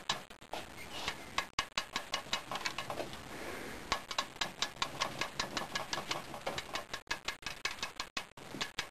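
Cutting pliers chipping and snapping at the glass neck of a vented CRT picture tube: a quick, uneven run of sharp clicks and small cracks, several a second.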